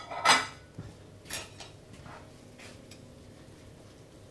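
Kitchen pans and utensils clattering: two loud metal clanks right at the start, then a couple of softer knocks.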